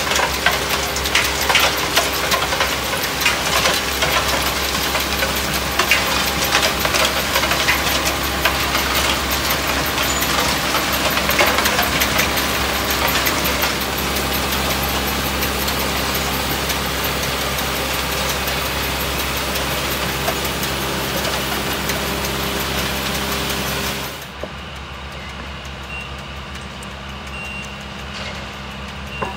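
Diesel engines of rail-mounted tie-replacement machines running close by, with frequent metallic clattering and knocking for about the first half, then a steadier engine sound. About three-quarters of the way through, the sound drops suddenly to a quieter, more distant engine hum.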